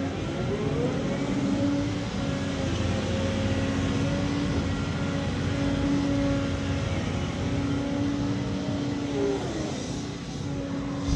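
Hydraulic excavator's diesel engine running under load while digging. Its note rises about a second in, holds steady, and falls back near the end.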